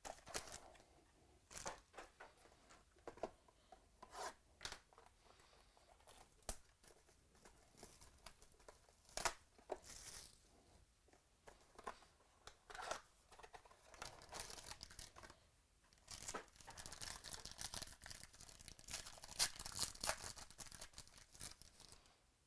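Trading-card packaging being torn open and crinkled by hand. There are sharp separate snaps and rips at first, then a longer stretch of steady crinkling toward the end.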